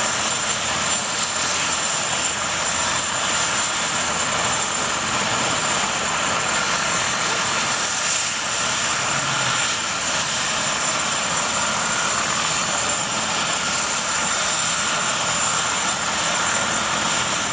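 Bell 412 twin-turbine helicopter running on the ground with its rotors turning: a steady turbine whine with a high, constant tone over the rotor and engine noise.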